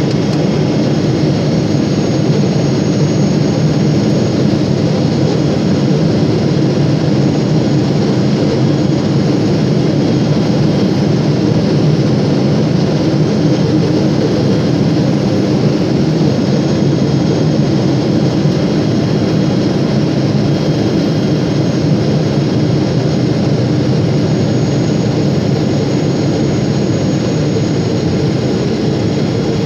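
Jet airliner's turbofan engine and rushing airflow heard inside the cabin at a window seat beside the engine: a loud, steady roar that stays the same throughout, with a faint high whine above it, on descent.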